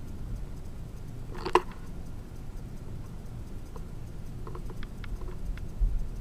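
Quiet room tone with a low steady hum, broken by one short sharp tap about a second and a half in, then a few faint light ticks.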